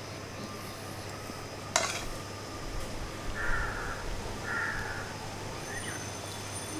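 A crow cawing twice, each call about half a second long, after a sharp click a little under two seconds in.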